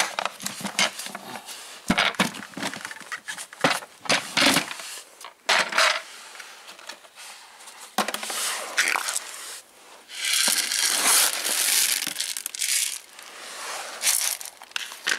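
Dry pet kibble poured from a plastic feed bin into a metal bowl, the hard pieces rattling onto the metal and onto each other in several short pours, then a longer steady pour about ten seconds in.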